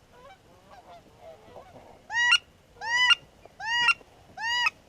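Four loud goose honks about three-quarters of a second apart, each rising in pitch and breaking at the top, after fainter calls in the first two seconds.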